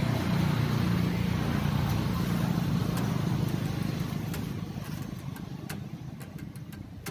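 A motor vehicle running past on the road. The engine and tyre noise is loudest at first and then fades away over the last few seconds as the vehicle moves off.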